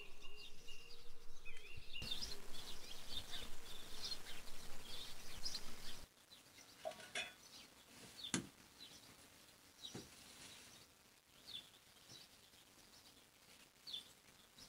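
Small birds chirping repeatedly over outdoor background noise. About six seconds in the chirping stops, and only scattered soft taps and thuds are heard as hands press and shape bread dough on a cloth.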